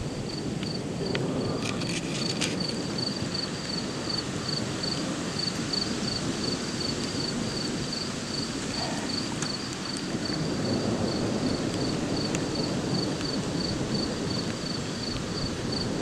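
A cricket chirping steadily, about three short high chirps a second, over a low rushing wind noise.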